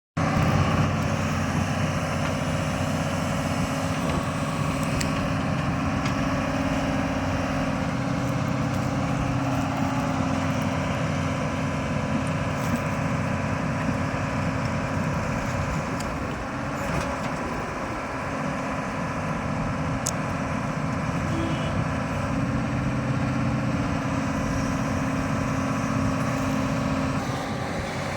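Doosan 225 excavator's diesel engine running steadily, easing slightly in level about two-thirds of the way through.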